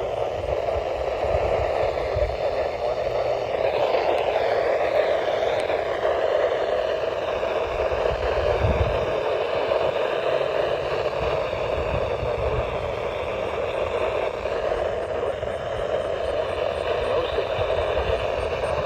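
Steady static from a weather radio tuned to a weak NOAA Weather Radio signal, with the broadcast barely coming through as faint wavering traces under the hiss.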